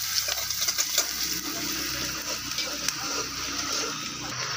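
Chopped onions and green chillies sizzling in hot oil in a metal pan, a steady hiss with a few faint ticks.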